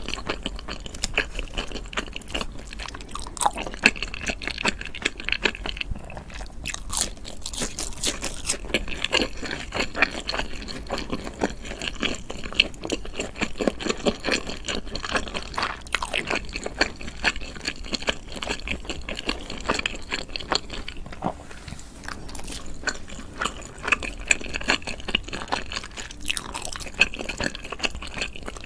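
Close-miked eating sounds: a person biting and chewing food, with dense, irregular small clicks and crackles of mouth sounds throughout.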